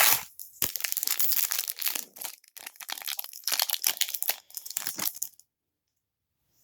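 Foil wrapper of a trading-card pack being torn open and crinkled, crackling for about five seconds.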